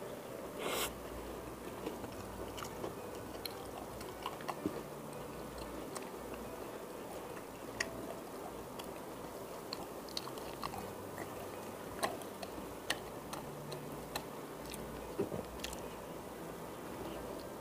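Close-up eating sounds of a person chewing and biting into a soft chicken burger bun, with many small wet mouth clicks and smacks scattered throughout. A short louder noisy burst comes about a second in.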